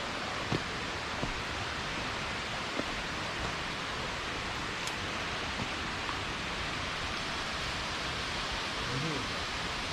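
Steady rushing of a stream of running water, with a few small knocks in the first three seconds.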